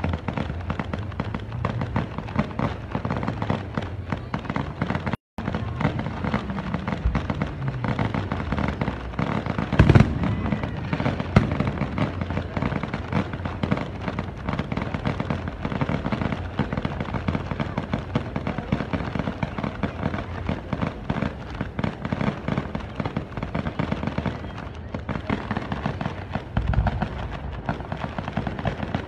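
Fireworks display going off: a dense, continuous crackling and popping of many small bursts, with one louder bang about ten seconds in.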